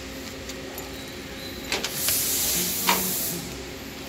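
CNC plasma cutter torch giving a loud hiss of about a second, starting just after a click, over a steady electrical hum from the machine.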